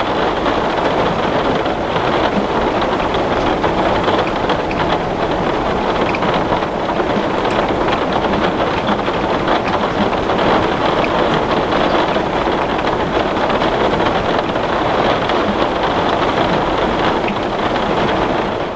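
Heavy rain falling on glass: a steady, dense patter of countless drops.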